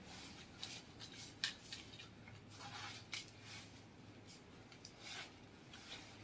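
Faint rustling and short scrapes of a jacket's fabric and zipper as it is handled and unzipped, in scattered brief strokes.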